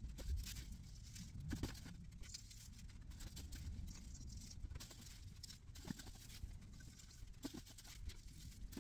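Faint rustling and light clicks of pink ornaments being hung on an artificial Christmas tree's branches, with soft footsteps on a wooden floor.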